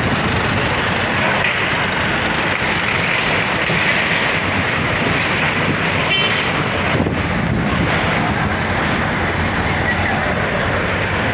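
Loud, steady street noise of engines and traffic, with a short horn toot about six seconds in.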